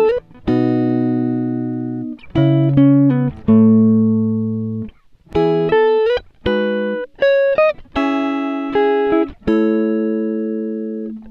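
Background music: a plucked guitar tune of single notes and chords, each note starting sharply and ringing away, in short phrases with brief pauses between them.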